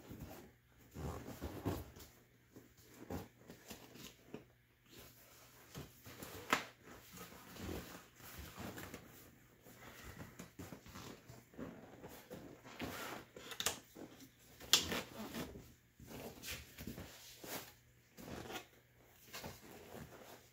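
Vinyl seat cover being pulled, stretched and worked over a seat cushion: irregular rustling and scraping, with a few sharp clicks and knocks from the cover's edge and clips catching on the seat frame.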